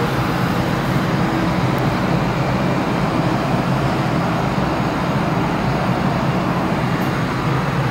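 Electric MRT metro train running along an elevated track, heard from inside the passenger car: a steady low rumble and hum with a hiss above it.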